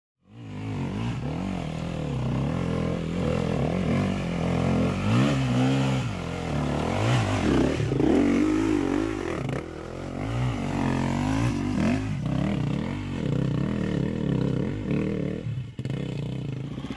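KTM dirt bike engine revving up and down while being ridden on a dirt trail, its pitch rising and falling every second or so. It starts suddenly just after the beginning.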